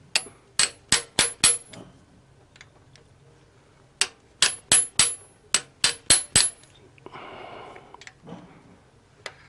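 Hammer tapping a steel socket held on the valve spring retainers of an engine's cylinder head: five quick, sharp metallic taps, a pause, then eight more. The valves are being struck to loosen the collets so they are not seized before the valve stem seals are changed.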